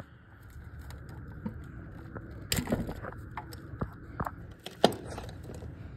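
Scattered clicks, knocks and scrapes of machine parts being handled during assembly, over a steady low hum. The two loudest knocks come about two and a half and five seconds in.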